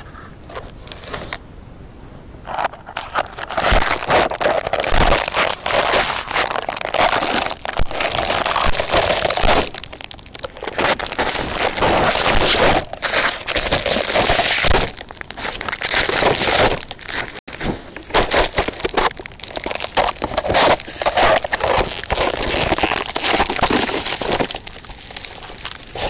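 A large furry animal rubbing and nosing against the camera trap, its fur and body scraping on the housing close to the microphone: loud, irregular crunching and scratching noise that grows louder about three seconds in.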